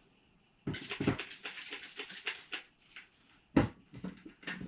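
Plastic trigger spray bottle spritzing scissors in a quick run of short hisses, then a sharp knock about three and a half seconds in and a lighter one about a second later.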